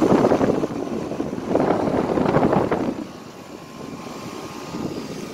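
2003 Rheem Classic 2.5-ton central air conditioner condensing unit starting up and running. Two loud, rough bursts of noise come in the first three seconds, then a steadier, quieter running sound follows.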